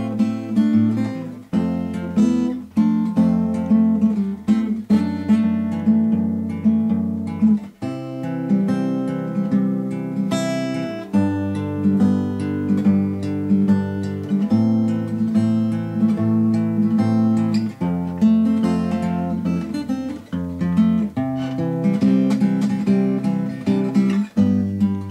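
Background music: an acoustic guitar playing plucked and strummed chords that change every second or two.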